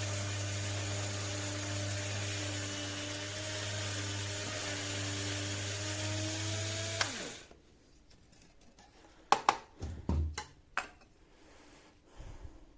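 Electric blade coffee grinder's motor running steadily with a high whine, then switched off about seven seconds in, winding down. A few sharp clicks and knocks follow.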